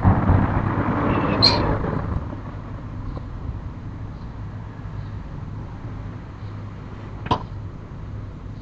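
A car passing, its noise fading out over the first two seconds, with a brief high squeak about a second and a half in. About seven seconds in comes a single sharp knock.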